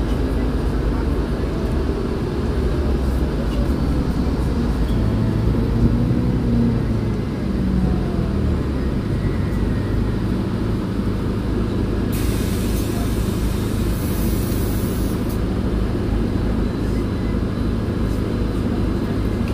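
MAN Lion's City 18C hybrid articulated bus under way, its diesel engine and drivetrain running with a few rises and falls in pitch, then settling to a steady hum. A hiss of air starts about twelve seconds in and lasts some three seconds.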